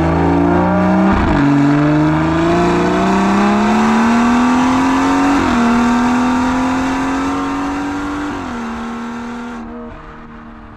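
BMW 340i's B58 turbocharged 3.0-litre straight-six accelerating through the gears, heard at the exhaust tip through a catless 4.5-inch downpipe and the M Performance cat-back exhaust. The pitch climbs and drops at upshifts about a second in, about five and a half seconds in and about eight and a half seconds in, then fades out near the end.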